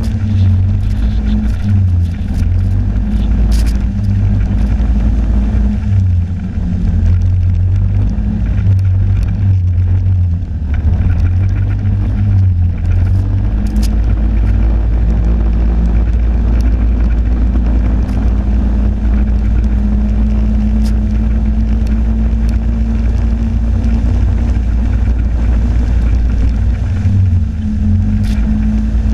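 Snowmobile engine running steadily at trail speed, heard from the riding machine itself; its note wavers a little as the throttle changes in the first half and again near the end, over a heavy low rumble.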